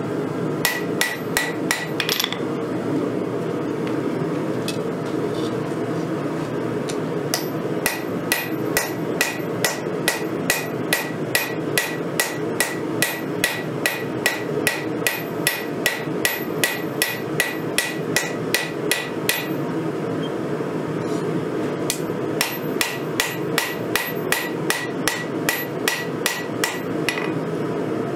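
Hand hammer forging a red-hot knife blade on a 132-pound Vevor steel anvil: runs of steady blows about two a second, each with a ringing note, broken by two pauses of a few seconds.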